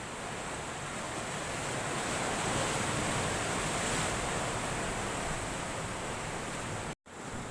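Ocean surf washing on a rocky shore, a steady rush that swells a couple of seconds in, then cuts out abruptly for an instant near the end.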